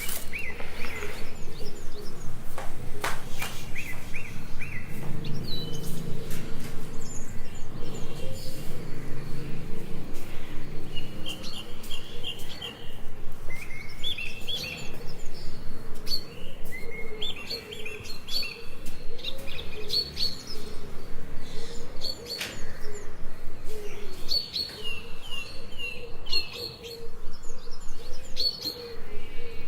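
Small birds chirping and tweeting, in repeated short runs of high notes. Beneath them runs a steady rhythmic sound that pulses several times a second, with a brief pause about two-fifths of the way through.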